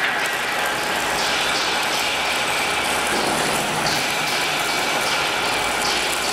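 Steady running noise of machinery, an even mechanical hum and hiss with no breaks.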